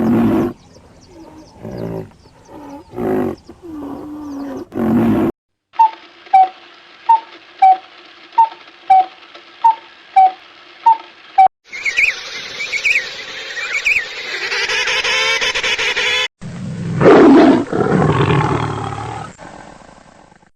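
A series of animal calls in separate clips. First several pitched calls, then about ten short, evenly spaced high calls. After that comes a dense stretch of noise with chirps, and a loud call near the end.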